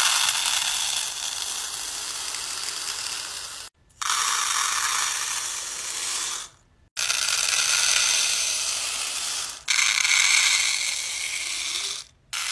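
Seed beads pouring out of a tube into a clear plastic compartment organizer: a dense, fast rattling hiss as the tiny beads stream out and pile up. Four pours follow one another, each a few seconds long, separated by brief silences.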